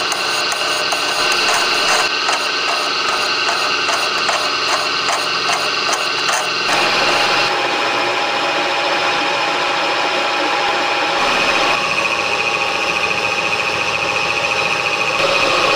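Birmingham vertical milling machine running and cutting steel, a steady whine from the motor and spindle with a cutting noise that pulses about twice a second at first. The sound changes abruptly about seven seconds in and again about twelve seconds in.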